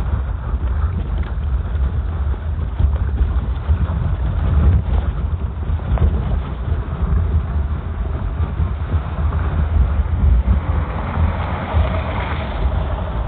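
Loud, steady low rumble of wind and movement buffeting the camera microphone outdoors. A car's sound rises near the end as it passes.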